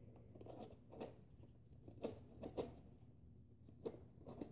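Foam darts being pushed one by one into a Nerf Rampage's 25-dart drum magazine: faint soft clicks and scrapes, about six, at uneven intervals.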